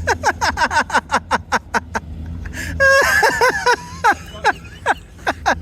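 Van tyres spinning on snow under throttle, giving a rapid run of short, falling squeals, about five or six a second, over the low running of the engine. The van is struggling for grip in the snow.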